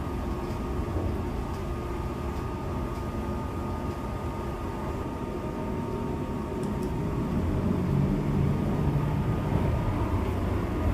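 Running noise of a Seibu 001-series Laview limited express train heard from inside the car: a steady rumble with a faint steady whine over it. The low hum swells about eight seconds in.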